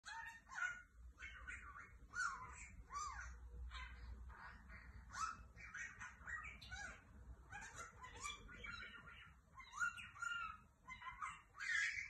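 Pet budgerigar chattering and warbling: a quick, nearly unbroken run of chirps, squeaks and gliding whistles.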